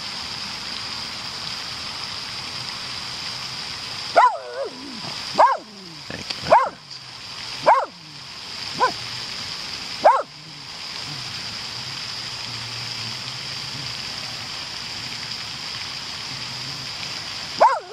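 A dog barking: six short, high barks that drop in pitch, spaced about a second apart starting about four seconds in, then one more near the end, over a steady hiss.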